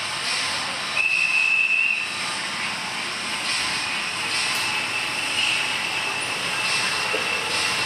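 Model trains running on a layout: a steady whirring hiss of small motors and wheels on track. A high steady whine sounds for about a second, starting about a second in, and returns more faintly in the second half.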